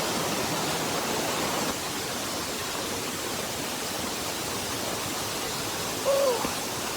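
Waterfall: a steady, loud rush of falling water that drops slightly in level about two seconds in. A brief vocal sound comes about six seconds in.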